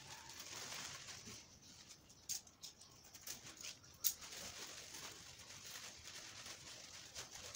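Black plastic bag rustling and crinkling faintly as it is handled and untied, with a few sharp crackles, the sharpest about four seconds in.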